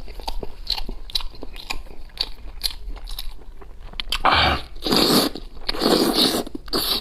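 A person chewing and biting spicy braised leg meat close to the microphone, with many small wet mouth clicks. In the second half there are three or four louder noisy bursts.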